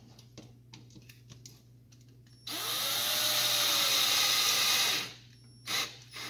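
Cordless drill driving a short Phillips screw through a metal corner bracket into a wooden frame. It runs for about two and a half seconds starting about halfway in, its whine rising as it spins up and then sagging slightly. A few light clicks of handling come before it, and short knocks come near the end.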